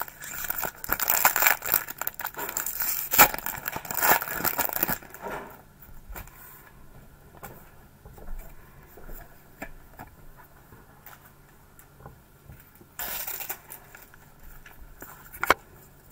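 Foil Pokémon booster pack wrapper crinkling and tearing open for about five seconds, followed by quieter handling with small ticks and another brief crinkle about thirteen seconds in.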